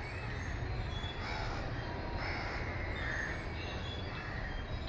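Crows cawing, a few calls about a second apart, over a low steady rumble.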